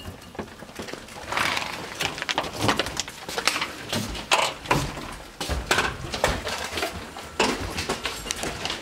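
Irregular footsteps, knocks and rustling as people walk in through a house's front door and down the hallway.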